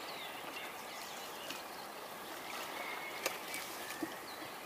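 Faint outdoor ambience: a steady hiss with small birds chirping now and then, and a few light knocks, the sharpest a little after three seconds in.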